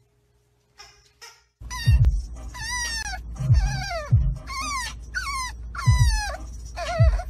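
French bulldog puppy whining inside a car: about seven high cries, one roughly every second, each sliding down in pitch. They start about a second and a half in, over the steady low rumble of the moving car.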